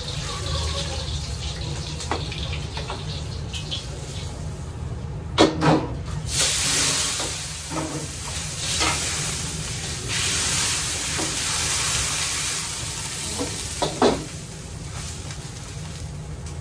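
Wok cooking on a restaurant range: a steady low rumble from the range, a metal ladle clanging against the wok a few times about five seconds in, then a loud hiss of sizzling and steam that lasts several seconds, with another clang near the end.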